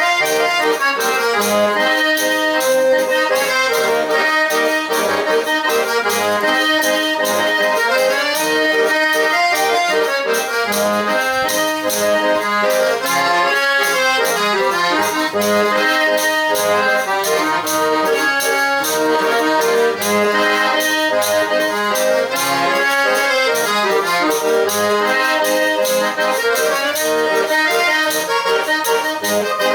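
Pé de bode (eight-bass button accordion) playing a lively traditional Brazilian dance tune, melody and chords over a quick, steady rhythm.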